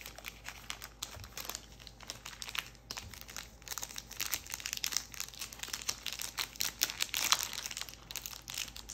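Foil trading-card pack wrappers crinkling and tearing as they are handled and ripped open, a dense crackle that is loudest about halfway through to near the end.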